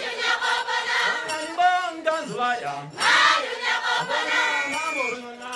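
A man sings into a microphone, leading a crowd of students who sing and chant along. A loud surge of many voices comes about three seconds in.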